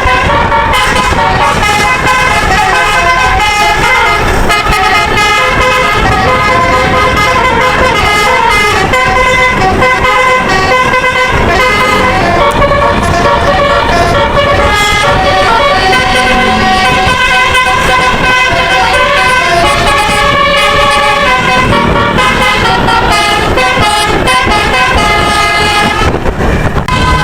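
A bus's musical "telolet" air horn playing a tune, its tones stepping up and down without pause over the noise of the vehicle.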